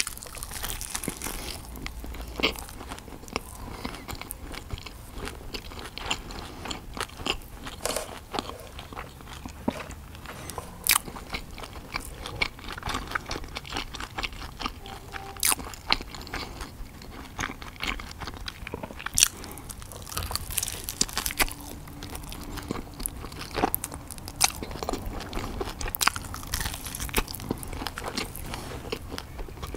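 Crunchy bites and chewing of a breaded fried chicken schnitzel eaten with pizza, close to the microphone: many sharp, irregular crunches.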